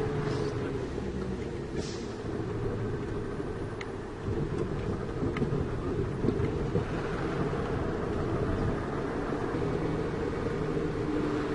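Truck engine running steadily while driving, heard from inside the cab along with road noise and a few light rattles; the sound dips briefly about four seconds in, then picks up again.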